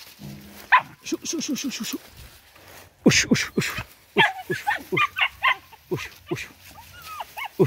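Vietnamese native hunting dog barking: a quick run of short yips about a second in, then repeated sharp barks and yelps, two or three a second, while it works a scent through the undergrowth.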